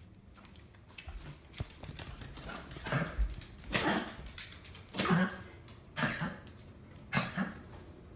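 Wheezing: a run of harsh, noisy breaths about once a second, some in quick pairs, loud from about three seconds in.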